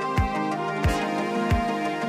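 Background music with a steady beat: a low kick drum about every two-thirds of a second under sustained, soft chords.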